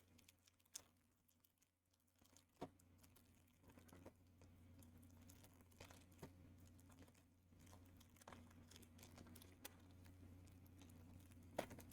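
Faint crinkling and tearing of a foil booster-pack wrapper being opened and handled, with scattered soft clicks over a low steady hum.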